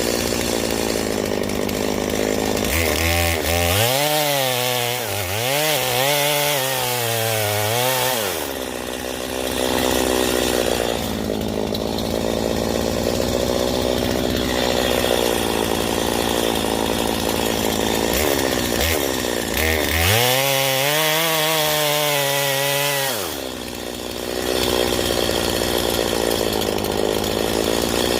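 Chainsaw running at high revs while cutting through a large tree trunk during felling. Twice, for several seconds each, its pitch drops and wavers as the saw loads up in the cut, then climbs back.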